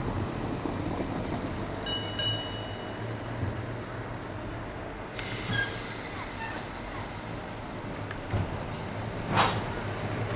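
Electric tram approaching slowly on its rails, with a steady low rumble of wheels and motors. About two seconds in a brief high ringing sounds twice, from about five seconds in there is a high hissing squeal, and there is a short noisy burst near the end.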